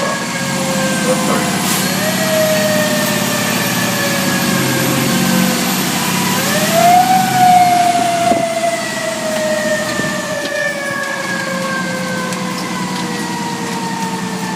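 Fire engine's siren wailing, its pitch climbing quickly and then sliding slowly down, over and over, with the truck's engine running underneath.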